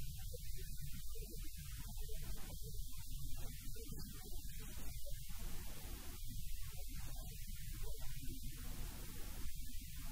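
Steady electrical mains hum, a low buzz on the audio line.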